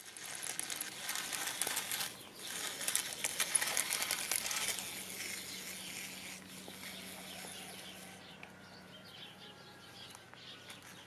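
Remote-control toy tarantula's motor and plastic legs clattering in a dense, crackly rattle, loudest in the first few seconds. It fades out about eight seconds in.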